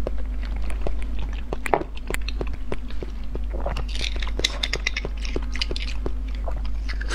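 Close-up eating sounds from beef marrow bones: many short wet mouth clicks and sucking slurps, with a thin metal utensil scraping and clicking inside a bone, over a steady low hum.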